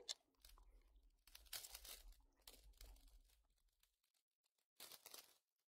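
Faint crinkling and tearing of a foil Pokémon booster pack wrapper being opened by hand, in several short irregular bursts, with one more brief rustle near the end.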